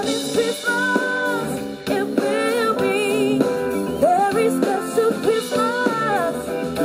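Live band music: a woman sings lead through a microphone, holding long wavering notes, over guitar accompaniment.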